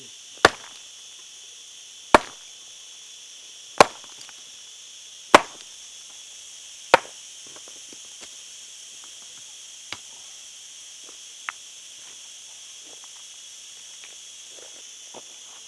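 A long-handled hoe striking hard earth: five heavy blows about a second and a half apart, then two lighter knocks later. Insects chirr steadily in the background.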